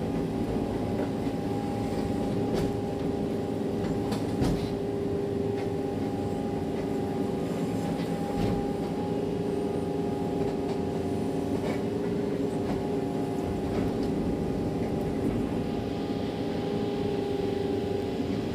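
Excavator's diesel engine and hydraulics running steadily, with a hum holding one pitch and a few sharp knocks, such as a log or the bucket striking.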